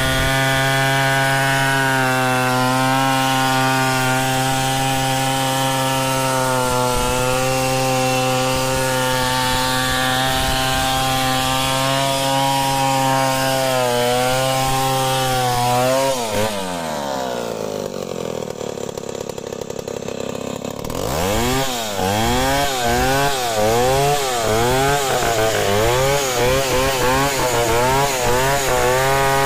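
Large 070-class two-stroke chainsaw ripping lengthwise through a mahogany log at full throttle, its pitch sagging slightly under load. About halfway through it drops to idle for a few seconds, then is revved up and down about once a second before going back to full throttle as a new cut begins.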